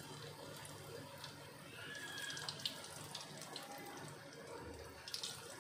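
Potato-stuffed bread balls deep-frying in hot oil: a steady sizzle with fine crackling as more balls are lowered in. The oil is not popping or spattering, because the soaked bread was squeezed dry.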